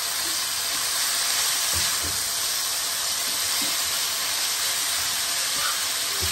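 Keema (minced meat) sizzling in a nonstick frying pan with a steady hiss, while a silicone spatula stirs and breaks it up with a few soft knocks against the pan.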